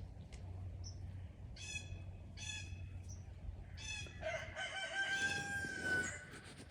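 A rooster crowing about four seconds in: one long call held on a steady pitch for nearly two seconds. Three short, harsh bird calls come before it.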